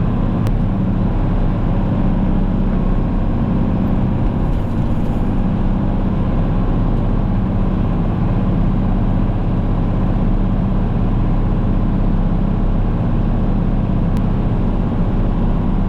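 Engine running steadily at an even speed throughout, a constant low hum.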